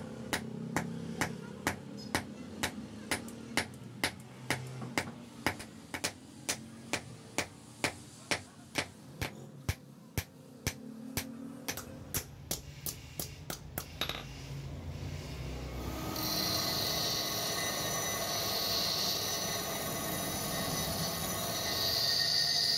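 Hand hammer forging a red-hot steel rod on an anvil: steady, evenly spaced blows about two a second, coming a little faster just before they stop. A few seconds later a bench grinding wheel starts running, grinding the steel with a steady whirring hiss.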